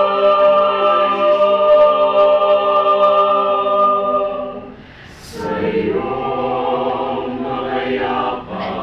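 Choir singing. A long held chord fades about four and a half seconds in; after a short pause with a brief hiss, the voices come in again on a new chord.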